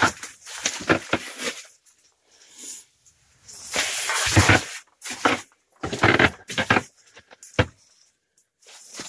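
Irregular rustling and bumping from someone moving about inside a pop-up ice-fishing tent, the fabric walls brushing and gear knocking. The longest stretch of rustling comes a little before halfway, with short knocks scattered around it.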